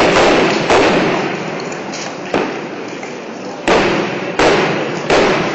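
Aerial firework shells bursting: six booms in quick, uneven succession, the third fainter, each trailing off in a long echo.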